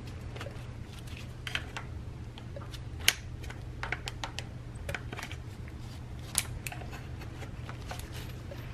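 Small metallic clicks and taps of hand tools, a screwdriver on a hose clamp and a wrench on a fuel fitting, while a fuel pressure regulator is removed. Two sharper clicks stand out, about three seconds in and six and a half seconds in, over a steady low hum.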